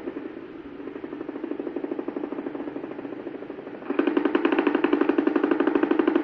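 Needle EMG loudspeaker playing a muscle's motor unit potentials as rapid, evenly spaced pops, fainter at first and then suddenly louder and more regular from about four seconds in, as the patient contracts. The potentials are the large, long-duration motor units of chronic reinnervation in ALS.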